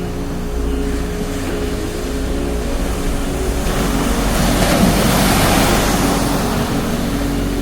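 Sea surf on a beach: a wave rushes in, swelling to its loudest about five seconds in and then washing away. Underneath, a steady low hum.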